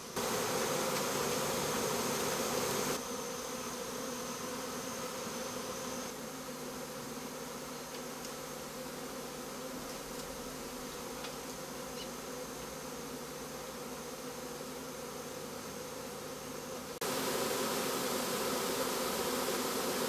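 A swarm of honey bees buzzing steadily, a dense hum of many wings. It drops in loudness about three seconds in and comes back up near the end.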